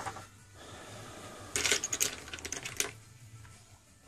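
A quick run of small, sharp plastic clicks and taps, starting about a second and a half in and lasting about a second, as fingers handle the opened plastic body of a Samsung Galaxy Note II phone.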